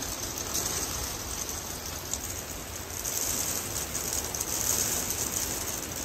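Rain falling steadily, an even hiss that swells a little past the middle.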